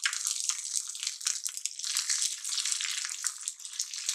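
Green chillies sizzling in hot oil in a small kadhai, with mustard and sesame seeds crackling and spluttering, stirred with a steel spoon. A dense, steady crackle with many small pops.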